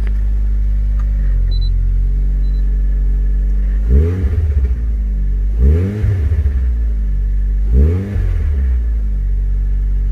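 Turbocharged Suzuki Swift ZC31S 1.6-litre four-cylinder engine idling just after being started, heard from inside the cabin. It is blipped three times, about four, six and eight seconds in, each time revving up briefly and dropping back to idle.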